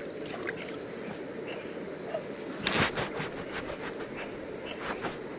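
Steady high-pitched trill of night insects over a running stream, with a short scraping clatter about three seconds in and a few lighter clicks from a knife cleaning catfish at the water's edge.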